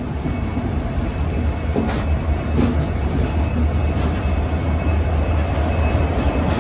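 Indian Railways express train running on the rails: a steady low rumble with a few sharp clicks and a faint high squeal from the wheels.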